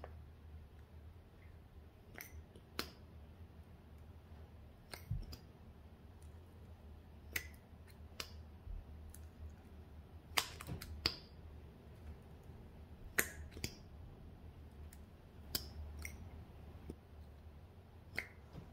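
Sharp clicks and taps of plastic cosmetic tubes and caps being handled, a dozen or so at irregular intervals, over a low steady hum.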